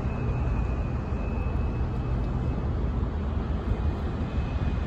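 Steady low rumble of a large container ship's engines passing close by, with a faint steady high whine above it.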